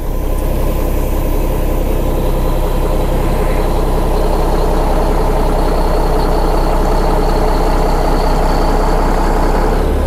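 Semi truck's diesel engine idling steadily, with a faint high steady whine joining about four seconds in and stopping just before the end.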